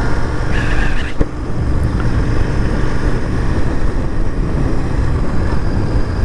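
Royal Enfield Continental GT650's 648 cc parallel-twin engine running steadily under way, with a steady rush of wind and road noise.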